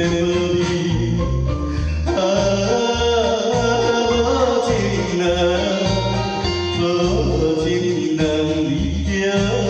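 Karaoke backing-track music of a Taiwanese ballad, with a melody line over a steady bass beat, about two beats a second.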